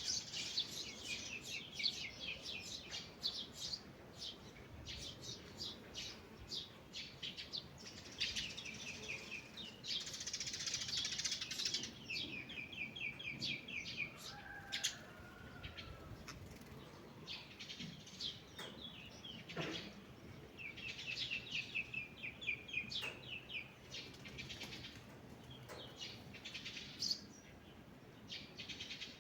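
Several songbirds singing together in a dawn chorus, with high chirps and fast trills of repeated notes; one trill recurs several times.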